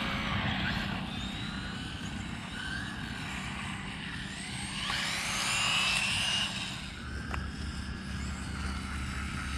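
Electric motors of two small RC buggies, a 1/14 and a 1/18 scale, whining as they race past. The pitch rises and falls with the throttle and swells loudest about five to six and a half seconds in.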